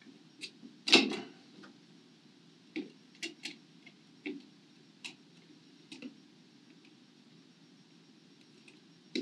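Small clicks and taps of tiny mounting screws, plastic standoffs and a screwdriver being handled against a fiberglass sled on a work mat. They come irregularly, about ten in all, with a louder knock about a second in.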